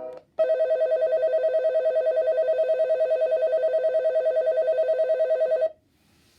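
Yamanote Line alarm clock's electronic bell ringing: a steady, rapidly trilling ring, about eight or nine pulses a second, for about five seconds before it cuts off suddenly.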